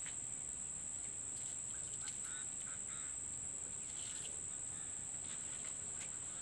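Steady high-pitched insect chorus, with a short run of faint chirping calls about two to three seconds in.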